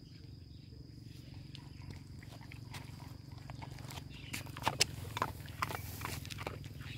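A dog chewing dry kibble, with a run of crisp crunches and clicks between about four and a half and six and a half seconds in, over a low steady rumble.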